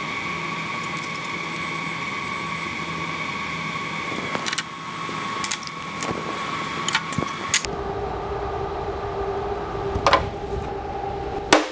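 Sharp metallic clicks and taps of marking out a steel plate, one about ten seconds in as a center punch is set on the scribed X. They sit over steady droning tones that drop to a lower pitch about eight seconds in.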